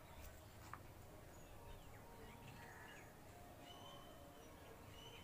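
Near silence: faint outdoor background with a few scattered bird chirps.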